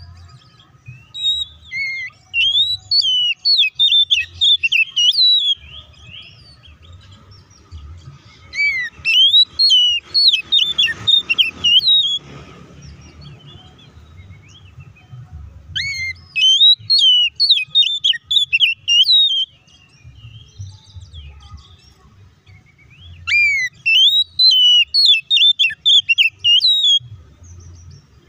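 Oriental magpie-robin singing in four bursts of about four seconds each. Each burst is a fast run of loud, sharply rising and falling whistles and chattering notes, the full, combative song that bird keepers use to provoke other magpie-robins into singing.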